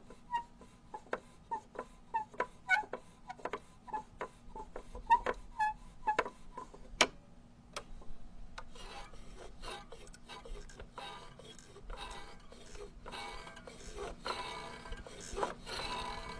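Rubber duck being squeezed, giving a run of short, quick squeaks with clicks between them. After a brief pause it gives a longer rasping, rubbing sound, like rubber rubbed against itself.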